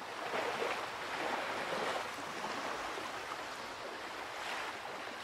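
Sea surf washing onto a pebble and rock shore: a steady hiss of water that swells a little about a second in and again near the end.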